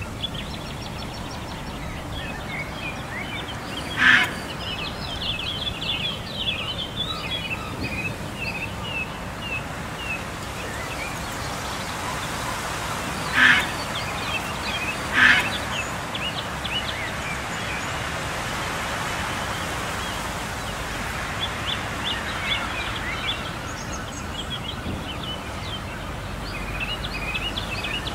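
Birds calling at a coastal lagoon: many quick chirps throughout, and three louder single calls, one about 4 seconds in and two close together around the middle, over a steady background hiss of outdoor noise.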